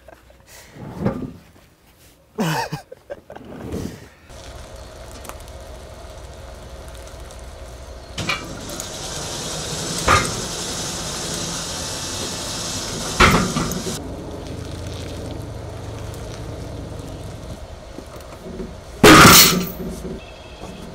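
Heavy elm slabs and a log being handled on the steel bed of a homemade bandsaw mill: wooden knocks, metal clanks and one loud bang near the end. A steady mechanical hum sets in a few seconds in and runs under them.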